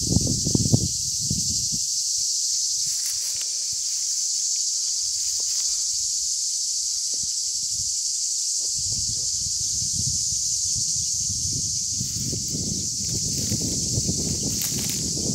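Steady, high-pitched chorus of cicadas shrilling without a break. Footsteps crunch through dry grass about a second in, and again through the last several seconds.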